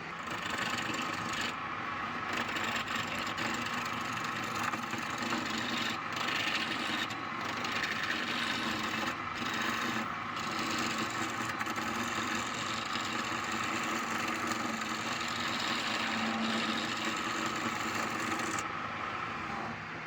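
Wood lathe running with a turning tool cutting into a palm wood bowl blank, a steady scraping cut over the motor's hum that breaks off briefly several times.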